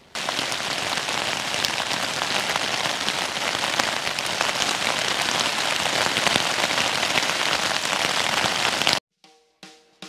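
Steady heavy rain, a dense patter of many separate drop hits, which cuts off suddenly about a second before the end.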